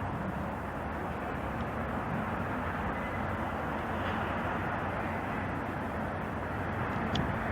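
Train running through the station with a steady rumble, growing slightly louder near the end.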